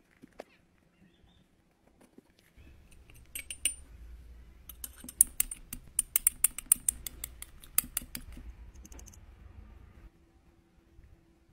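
Glass rod clinking and scraping against a small glass beaker as crumbled eyeshadow powder is crushed, a quick run of sharp clicks lasting several seconds in the middle. A few light taps of a metal spatula on the eyeshadow pan come near the start.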